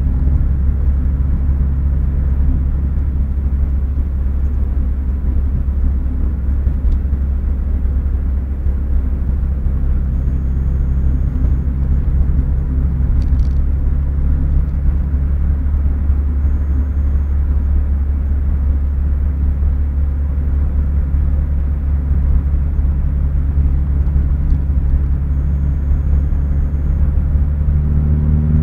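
Renault Clio RS 172's 2.0-litre four-cylinder engine and tyre rumble heard from inside the cabin, with a steady drone while cruising. Right at the end the engine note begins to climb.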